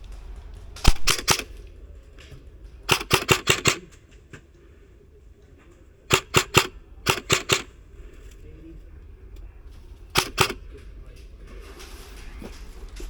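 Airsoft electric rifle, the upgraded Krytac LVOA-S, firing five short bursts of two to six rapid shots each, spread across the span, with pauses between. The first burst, about a second in, is the loudest.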